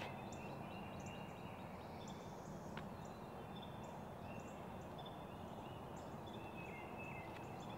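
Faint outdoor background with birds calling from the trees: scattered short high chirps and brief whistled notes over a low, steady haze.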